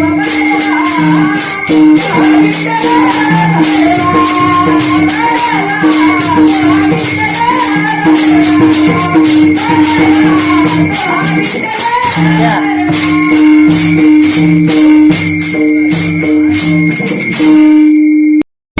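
Marathi devotional bhajan: a male lead voice sings a gaulan over a steady held drone, a repeating drum pattern and small hand cymbals ringing in time. The music cuts out abruptly for a moment near the end.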